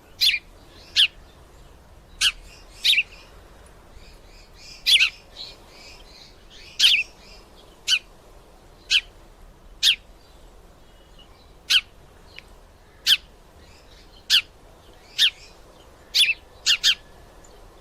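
Sparrow chirping: single short, sharp chirps roughly once a second, now and then two in quick succession.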